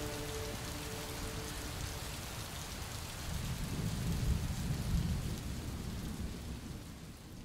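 Steady rain with a low rumble of thunder that swells about four seconds in, then fades out. A held musical chord dies away at the start.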